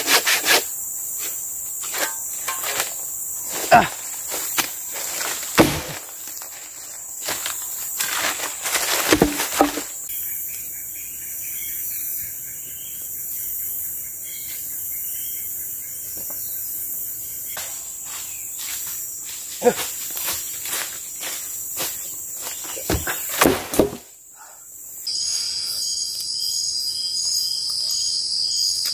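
Forest insects buzzing steadily, with scattered knocks, rustles and strokes from hand-saw and shelter-building work among dry leaves and branches. After a brief drop about 24 seconds in, crickets take over, chirping in an even pulsing pattern.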